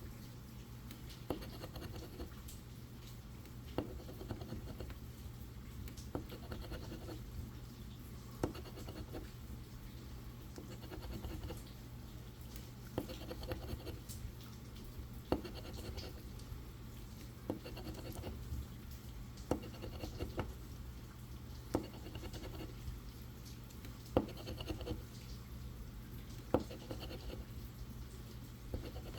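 Scratch-off lottery ticket being scratched: short scratching strokes across the coated play area, with a sharp tap about every two seconds, over a steady low hum.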